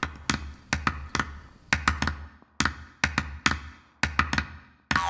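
Percussive trailer music: sharp knocking drum hits, each with a deep thump beneath, in a steady rhythm of about three hits a second that drops out briefly twice.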